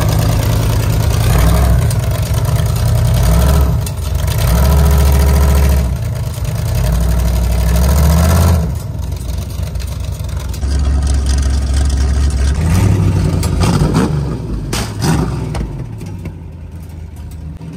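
Rat rod's carbureted gasoline engine, twin carburettors and an open exhaust stack, revving loudly in surges as the car drives down the trailer ramps. About halfway through it drops to a lower, steadier run with a couple of short throttle blips.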